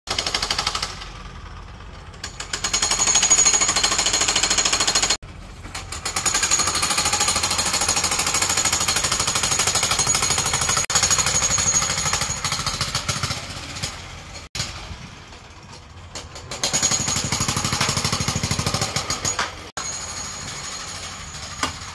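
Jackhammer breaking concrete, hammering rapidly in long bursts that stop abruptly a few times.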